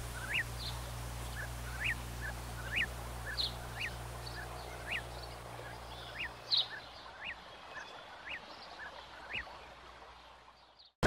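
Birds calling: short, high chirps that rise and fall, repeating about twice a second, over a low steady hum that fades out about two-thirds of the way through.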